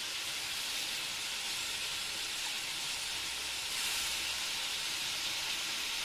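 Tomatoes and potato pieces frying in hot oil in a steel pan over a wood fire: a steady sizzling hiss that swells slightly around the middle.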